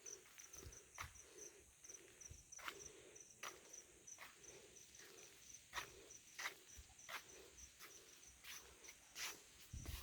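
Faint insects chirping: a high, even chirp repeating about three times a second over a lower pulsing chorus, with scattered soft clicks.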